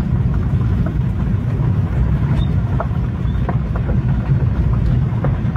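Car rolling slowly along a gravel road: a steady low rumble of engine and tyres, with scattered small ticks of gravel.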